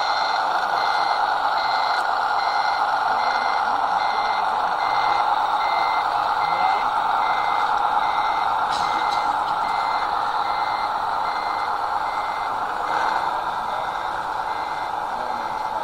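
RC scale tipper truck's sound module giving a reversing beeper, even beeps about two a second, as the truck backs up, over the steady running noise of its drive.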